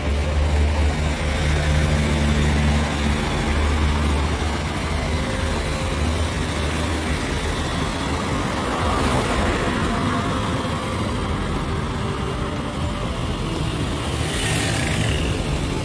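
Engine hum and road noise of a moving vehicle in traffic, steady throughout, with a brief hiss about fourteen seconds in.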